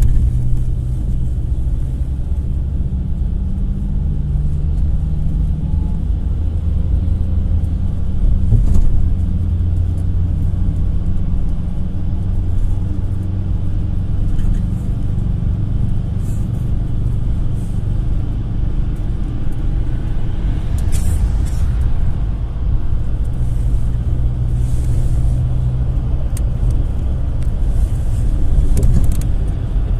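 GAZ-A65R52 Next minibus on the move: a steady low engine and road rumble whose pitch drifts a little with speed. A knock comes about nine seconds in, and a few brief rattles come later.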